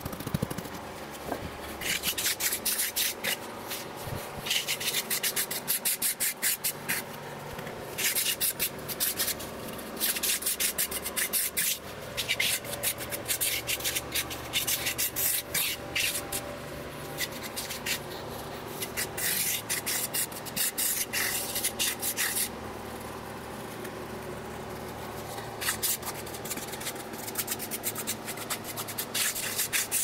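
Gloved hands and a trowel scraping and rubbing across the surface of freshly packed castable refractory, smoothing it level in the steel ring. Spells of rapid scratchy strokes a few seconds long, with short pauses between.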